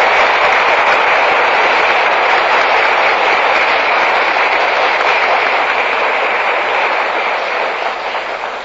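Audience applauding steadily, fading away near the end, on a 1961 recording.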